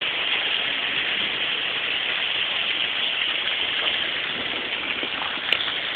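Torrential rain pouring down, a steady rushing hiss of rain and running water, heard through a cellphone microphone. A single sharp click about five and a half seconds in.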